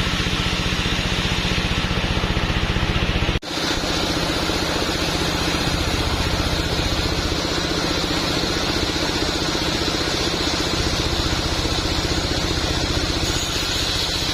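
Engine-driven sawmill machinery running steadily with a fast even pulse and a held whine. About three and a half seconds in, the sound cuts out briefly and picks up again.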